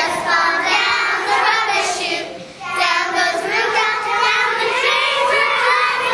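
A group of children singing together, with a brief dip in loudness about two seconds in.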